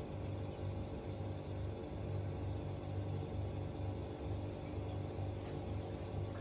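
Aquarium pump humming steadily, a low even drone with no breaks.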